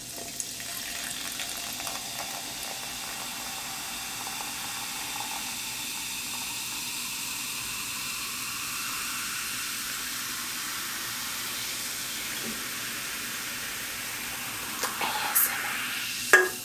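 Sparkling water poured from a can into a tumbler, a steady pouring and fizzing hiss. A couple of sharp knocks come near the end.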